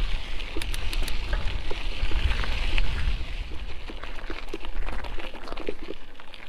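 Mountain bike rolling along a dirt and gravel trail: tyres crunching over loose ground, with scattered clicks and rattles from stones and the bike, and a low wind rumble on the microphone. It eases off in the second half.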